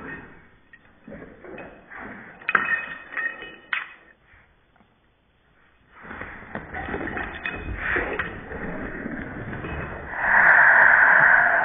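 Two Boston terriers playing on a carpeted floor: scattered thumps and knocks of paws and bodies, then a pause, then scuffling. About ten seconds in, as the dogs rush the door, a loud steady high-pitched sound starts and runs for about three seconds.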